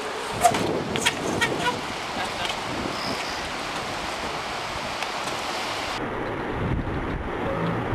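Wind buffeting the camcorder microphone, with a few sharp knocks in the first couple of seconds as the trials bike lands on the rock ledges.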